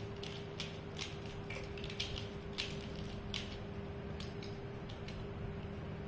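Plastic pyraminx puzzle being twisted by hand, its layers clicking as they turn, about two or three clicks a second in an uneven rhythm that stops near the end.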